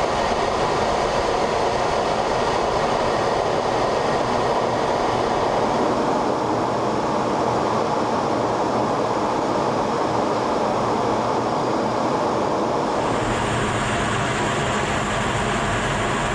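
Steady engine and airflow noise heard inside an F-15 fighter cockpit in flight. The noise turns brighter about thirteen seconds in.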